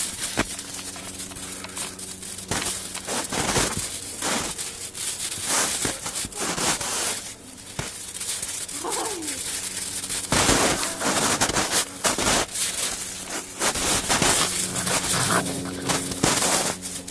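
Snow crunching under feet in irregular, crackly steps as the puppies scramble through deep snow and someone walks after them.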